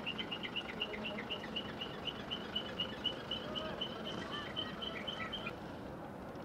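A bird calling: a fast, even run of short high chirps, about four or five a second, that stops near the end, over a steady outdoor hiss.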